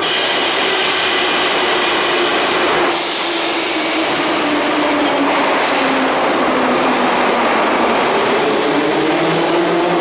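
Kyiv metro train at the platform closing its doors, with a sudden hiss of air about three seconds in, then pulling away. Under the constant station noise a motor whine drops slowly and then rises over the last four seconds as the train gets moving.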